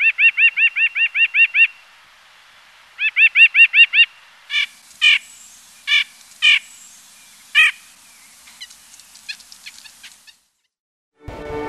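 Red-breasted nuthatch calling: a fast run of about ten short calls, a pause, a second shorter run, then several slower single calls that slide downward, fading out near the end.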